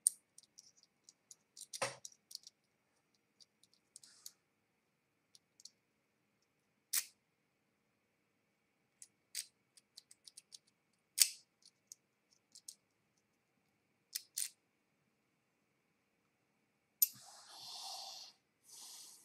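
Small sharp metallic clicks from an ABUS C83N lock cylinder being worked by hand with its key, a few of them louder, as the reassembled lock is checked. Near the end comes a short scuffing noise of handling.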